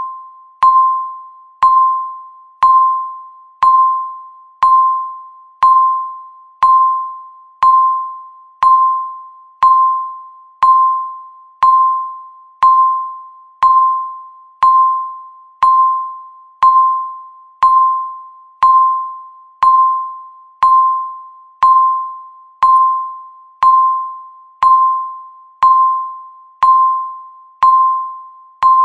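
Countdown timer beeping once every second: a short, mid-pitched electronic beep with a sharp start that fades away quickly, repeating evenly.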